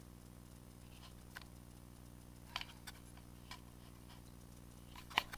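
Scattered faint clicks and taps, about seven, from handling a just-caught largemouth bass and fishing tackle in a small boat, the sharpest a double tap near the end, over a steady low hum.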